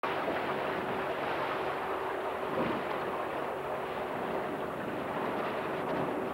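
Outboard motor of a coaching launch running steadily, mixed with wind rushing over the microphone, a faint steady hum under the noise.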